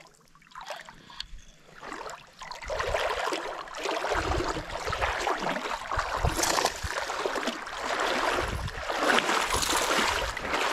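Water rushing and splashing with a low rumble, starting about two and a half seconds in after a quiet start.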